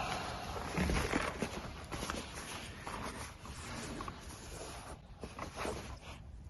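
Handling noise of gear being packed into a bag: soft rustling with scattered light knocks and clicks.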